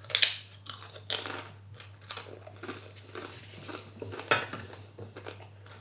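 Metal cutlery clinking and scraping against a plate while eating, a handful of sharp clinks spread over several seconds, the loudest right at the start.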